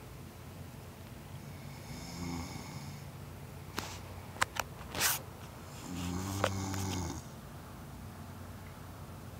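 A man snoring: a faint snore about two seconds in, then a few short sharp clicks around the middle, then a louder low snore lasting about a second.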